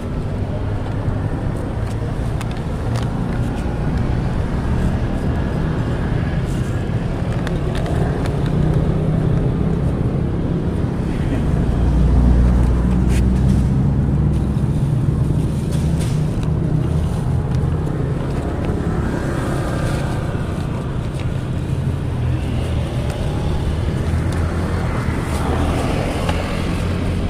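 Steady low engine rumble of a nearby vehicle, swelling a little about halfway through and easing again.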